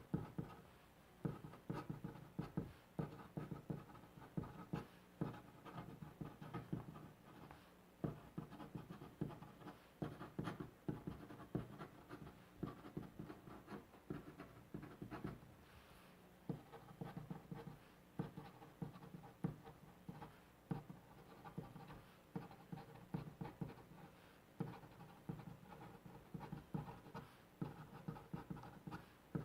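Pen nib scratching on paper in handwriting, a continuous run of short, irregular strokes and scrapes.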